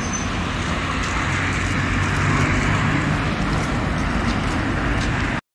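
Cars driving past on a street, a steady hiss of tyres and engines that swells a little about two seconds in. The sound cuts off suddenly near the end.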